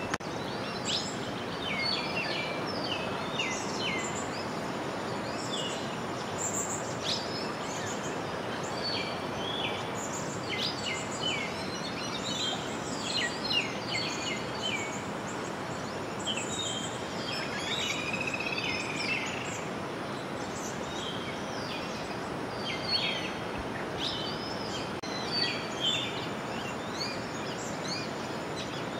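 Many birds chirping and calling in short repeated notes over a steady rush of flowing river water.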